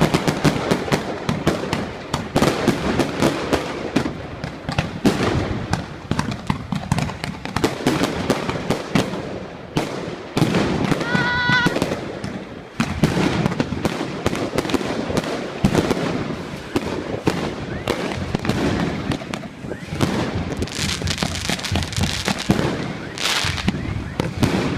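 Fireworks going off: a dense, unbroken crackle of rapid bangs, many a second.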